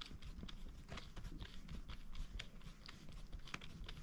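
Faint, irregular small clicks, several a second, from the spring assembly at the end of an RV roller blind tube being turned by hand to wind up the spring.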